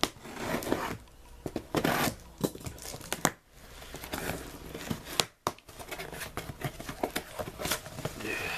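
A cardboard shipping box being opened by hand: tearing and crinkling of tape and packing material, with rustling, scraping and a few sharp clicks.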